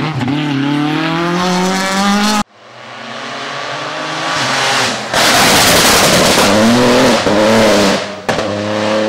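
Rally cars at full throttle in quick succession: a Ford Escort Mk2 rally car accelerating with a rising engine note, then after an abrupt cut a Peugeot 208 rally car approaching with climbing revs and passing close in a loud rush of engine and tyre noise, the engine note wavering through gear changes. A second abrupt cut near the end brings in another rally car running hard.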